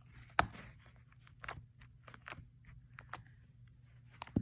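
Slime being pressed and poked with a plastic skeleton hand, giving a few sharp clicks and crackles, the loudest about half a second in and another near the end, over a low steady hum.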